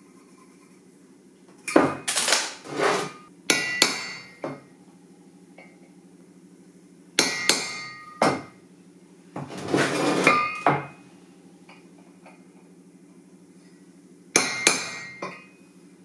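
A hammer striking a centre punch on a square steel tube, marking drill-hole positions. The taps come in several short groups, each strike ringing briefly off the steel, over a steady low hum.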